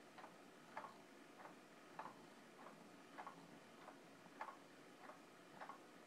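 Faint, steady ticking of a clock, a little under two ticks a second, alternating louder and softer ticks.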